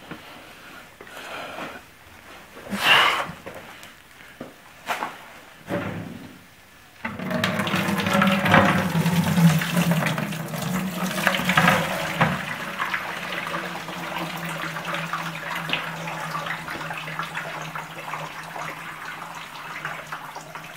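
A few knocks as an old lead-acid car battery is handled and tipped over, then, about seven seconds in, its sulfuric-acid electrolyte starts pouring out of the upturned battery into a plastic bucket. The pour splashes loudly at first and then settles into a steadier, quieter draining flow.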